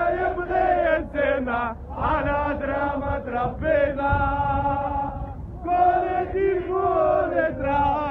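A crowd of male football supporters chanting a song together, in sung phrases broken by two short pauses.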